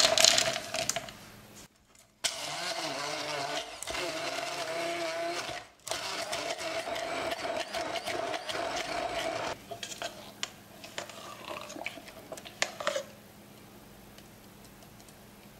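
Almonds clattering into a plastic beaker. Then a stick (immersion) blender runs with a steady motor whine in two stretches of a few seconds, with a brief stop between, puréeing the almonds with egg, oil and zucchini. Light knocks and scrapes follow as it stops.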